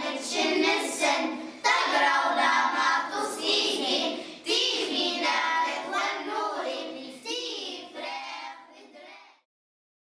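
A choir singing a song, the voices growing fainter and then stopping about nine seconds in.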